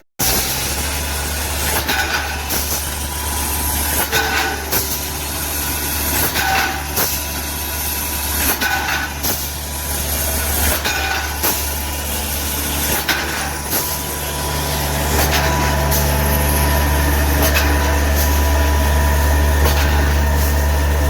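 Wire straightening and cutting machine running: a steady motor hum with a pair of sharp clicks about every two seconds, the cutter shearing off lengths of wire. About two-thirds of the way through, the hum grows louder and the clicks stop.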